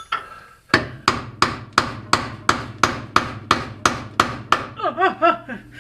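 Steady hammer blows, about three a second, from a 3 lb hammer driving a chisel against an original riveted upper ball joint on a 1973 Chevy Nova, metal on metal. Near the end the blows give way to a few short sounds whose pitch rises and falls.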